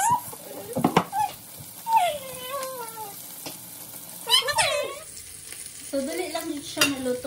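Salmon fillets sizzling as they fry in butter in a pan, a steady hiss throughout. A high voice, likely the child at the stove, breaks in several times with short sliding calls.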